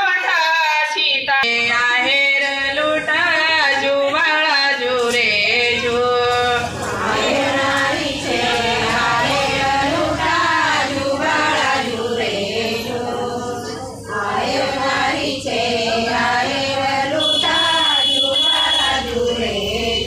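A group of women singing together: a Marathi pāḷaṇā, the cradle song sung for Ram's birth at Ram Navami, with many voices carrying a wavering melody in unison.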